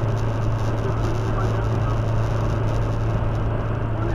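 Steady drone of a car driving at highway speed, heard inside the cabin: a constant low engine hum under even tyre and road noise.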